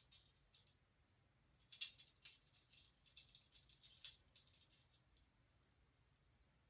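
Faint, scattered rustling and crackling: a short cluster right at the start, then a denser run from about two seconds in to about four seconds, then near quiet.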